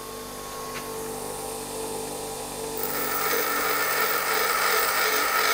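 A bench grinder motor runs steadily. About three seconds in, a high-speed steel tool bit is pressed against the grinding wheel and a loud, even grinding hiss starts as the steel is ground back.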